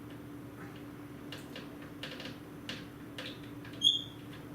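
Faint clicks and taps of hands working on a computer's liquid-cooling fittings, over a steady low hum, with one short high-pitched squeak near the end.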